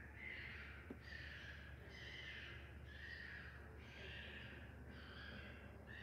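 A wild animal calling over and over: faint, rasping hisses with no clear pitch, about one a second, each falling slightly.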